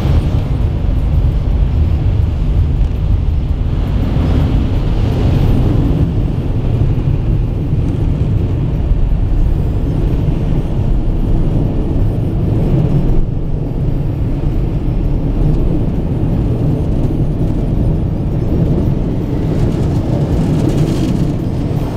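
Steady low rumble heard from inside a car's cabin, with water spattering on the windshield at the start.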